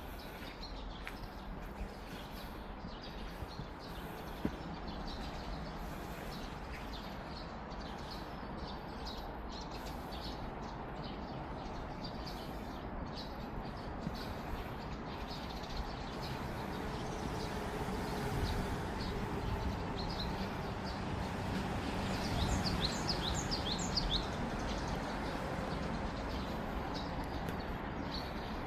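Small birds chirping over a steady outdoor background hiss, with short high chirps scattered throughout and a quick run of higher chirps about three-quarters of the way through.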